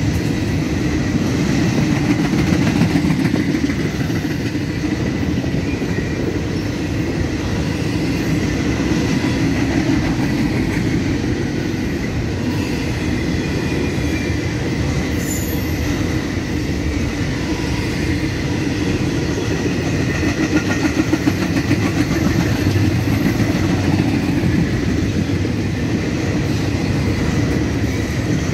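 Container cars of a double-stack CSX intermodal freight train rolling past at speed: a steady, dense rumble of steel wheels on rail. A thin, steady high tone runs along with it.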